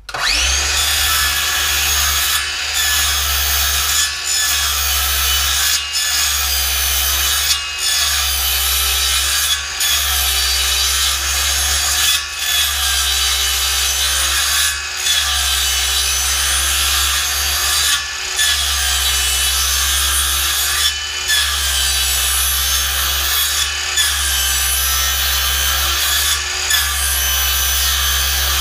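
DeWalt cordless circular saw starting up and cutting a row of closely spaced kerfs in a wooden board, so the waste between them can be chiselled out. It runs steadily, with short dips in loudness every two to three seconds.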